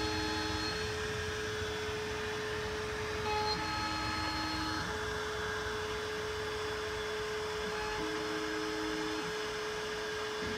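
Homemade belt-driven CNC router milling with a Makita trim router as the spindle: a steady motor whir and cutting noise. Thin machine tones shift in pitch for a second or so several times as the axes move.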